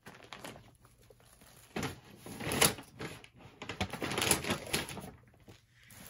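A packaged mattress protector being handled: crinkling and rustling packaging with uneven clicks and knocks, loudest about two and a half seconds in.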